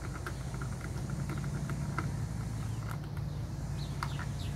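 Small clicks and ticks of a Phillips screwdriver turning out the cover screws on a Stihl FS80 line trimmer, over a steady low hum. A few short falling bird chirps come near the end.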